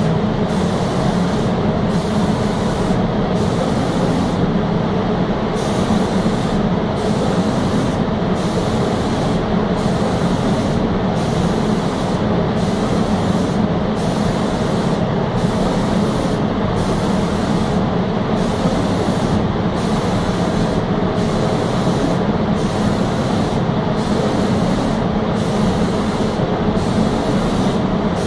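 Automatic spray gun hissing as it sprays PU finish over table tops, the hiss cutting out briefly about once a second, over the steady drone of the spray line's machinery.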